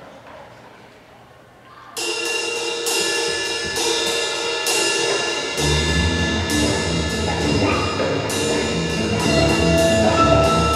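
Percussion ensemble music: after about two quiet seconds, the ensemble comes in suddenly and loudly with held chords and regularly repeated strokes. A few seconds later, low drums join in heavily.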